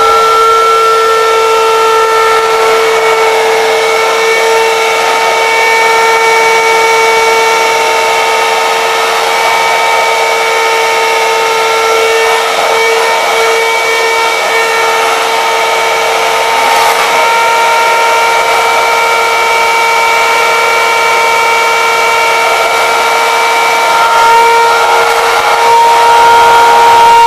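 Electric hand mixer running with a steady whine, its beaters whisking egg yolks and sugar in a glass bowl to blanch them. The pitch steps up slightly and the sound gets a little louder near the end.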